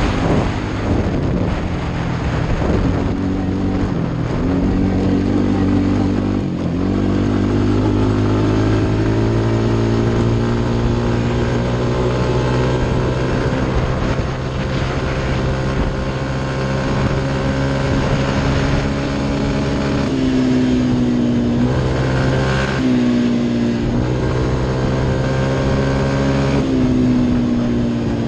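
Off-road motorcycle engine running hard at high revs across open flat ground, held up against its rev limiter. The engine note climbs slowly, then drops and picks back up three times in the last third, with rushing wind underneath.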